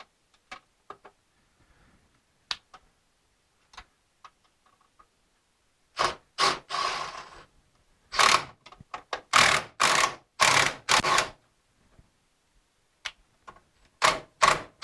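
Workshop handling noise: faint scattered clicks, then from about six seconds a string of loud, irregular knocks and clacks as tools and parts are handled, a dozen or so strikes with gaps between them.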